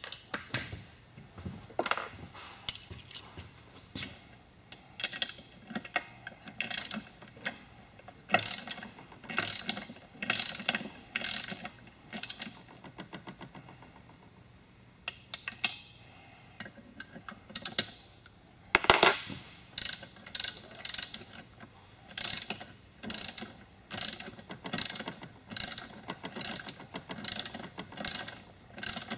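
Hand ratchet wrench with a 13 mm socket clicking through repeated short strokes as bolts are run down on the Aerovee engine's crankcase. There is a pause a little under halfway through. After that the strokes come quicker and more evenly, about one every two-thirds of a second.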